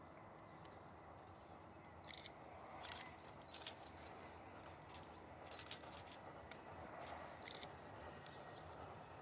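Scattered camera shutter clicks, single and in quick bursts, over a faint, steady low background in near quiet.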